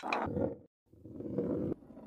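Intro-animation sound effect of a ball rolling along a marble-run track: a low rolling rumble in two stretches, broken by a brief silent gap about two-thirds of a second in.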